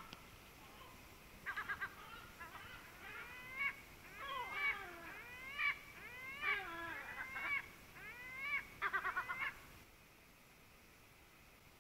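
Gull calling: a short rising note, then a string of harsh, gliding calls over about eight seconds, with a quick run of four or five notes near the start and another near the end.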